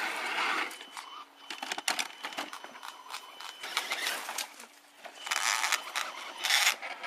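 Electric motors and gearboxes of radio-controlled off-road trucks whining in stops and starts, with tyres spinning and scrabbling in loose dirt as a truck climbs a slope; the loudest stretch comes near the end.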